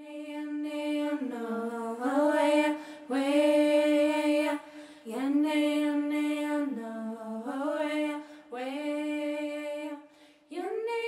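A lone female voice singing unaccompanied, a slow melody of long held notes in short phrases with brief breaks between them, stepping up to a higher note near the end.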